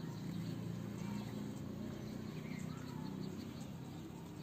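Quiet background: a low steady hum with a few faint bird chirps.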